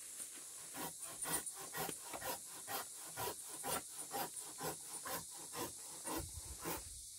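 Curved hand pruning saw cutting through a live wattle branch, in steady back-and-forth strokes of about two and a half a second.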